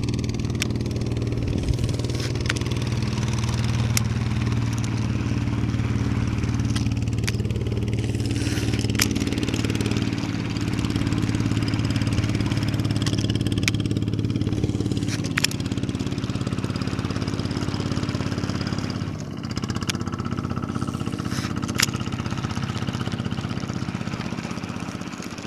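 A small engine running steadily, its pitch shifting slightly about ten seconds in and again near nineteen seconds, with scattered sharp clicks over it.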